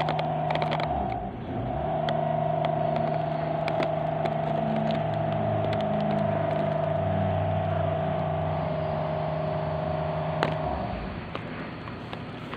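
A steady motor drone holding one pitch, the background noise the speaker complains of. It breaks off briefly about a second in, starts again, and stops shortly before the end.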